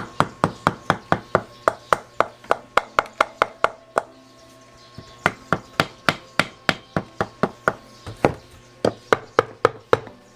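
Rapid, evenly spaced taps or knocks, about four a second, with a short pause just after four seconds in before they resume.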